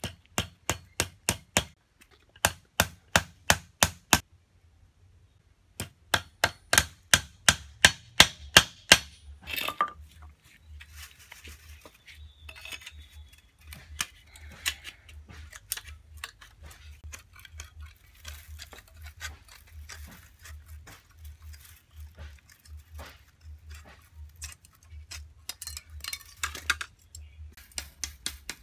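A small hammer striking a metal collar on a stick broom to clamp the bristle bundle to the handle, metal on metal. Sharp rapid strikes come in quick runs, then give way to lighter, quieter taps about ten seconds in.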